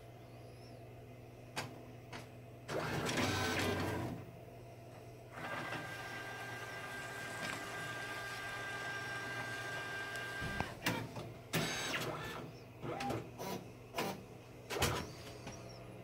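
Epson ColorWorks C7500G label printer at work feeding out printed Kraft paper labels: a loud mechanical burst about three seconds in, then a steady whirring run with a thin, steady high whine lasting about five seconds. Several short clicks and knocks follow near the end.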